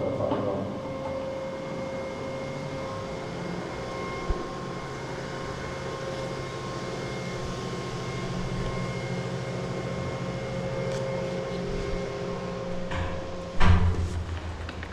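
A steady mechanical hum with faint held high tones, broken near the end by a sudden loud knock and some clattering.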